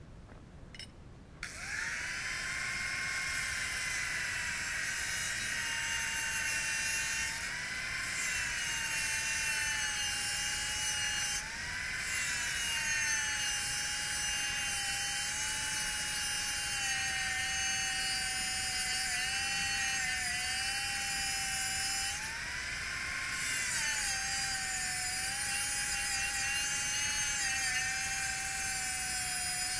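Angle grinder cutting metal, starting up about a second and a half in and then whining steadily. Its pitch drops each time the disc bites into the work and climbs back as the load eases.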